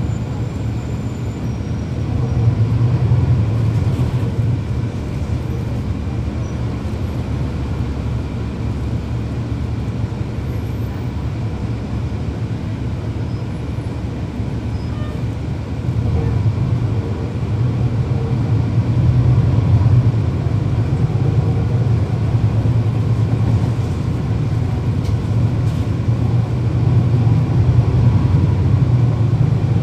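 Cabin sound aboard a NABI 40-SFW transit bus, its Cummins ISL9 inline-six diesel running with a steady low drone. The engine grows louder about two and a half seconds in, and again from about halfway through as it pulls harder.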